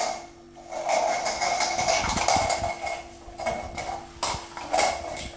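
Clattering and scrabbling on a tiled floor as a Yorkshire terrier puppy plays, a dense run of quick sharp clicks that is busiest about a second in.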